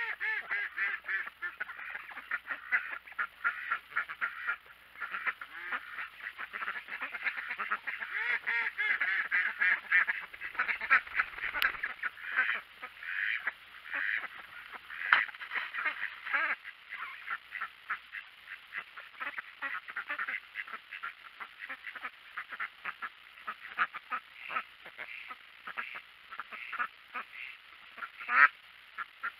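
A flock of domestic ducks quacking and chattering, with rapid, overlapping short calls and one louder quack near the end.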